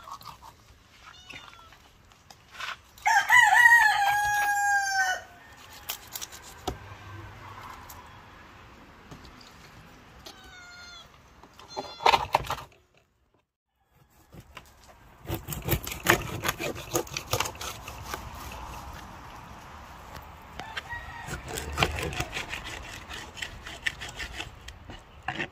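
A rooster crows once about three seconds in, a single long call held for about two seconds. Later, a kitchen knife knocks and scrapes repeatedly as it cuts through fish on a wooden cutting board.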